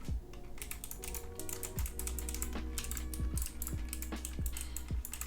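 Keys of a Logitech G815 low-profile mechanical keyboard being pressed in quick, irregular clicks as the keys are tried out.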